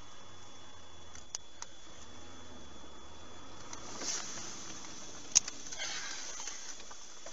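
Steady cabin and road noise from a moving vehicle, with a few sharp clicks, the loudest about five seconds in.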